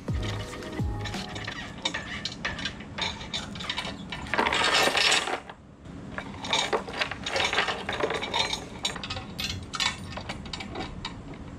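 Steel lifting chain clinking and rattling against an aluminium BMW M54 engine block while it is rigged to an engine hoist. There are scattered metallic clinks throughout, and a loud run of chain rattle about four seconds in that lasts about a second.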